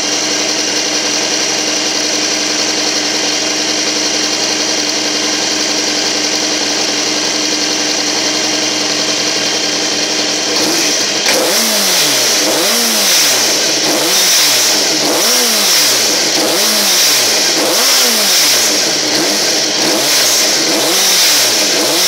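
Honda CBR600RR inline-four engine idling hot, coolant near 104 °C. About halfway through it is revved up and let back down over and over, roughly once every second and a bit.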